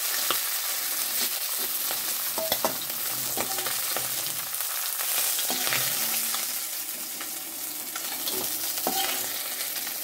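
Oil sizzling in a metal karai as fried fish-head pieces are lifted out, with a metal spatula scraping and clinking against the pan several times.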